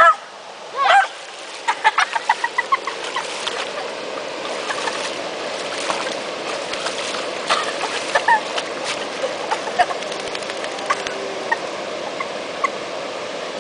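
Steady rush of water from a waterfall, with a few sharp animal calls at the start, a quick run of short high calls about two seconds in, and scattered chirps later.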